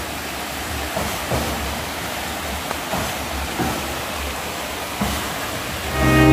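Steady rushing of water flowing at a small dam, with a few faint short knocks. Music with long held notes comes in near the end.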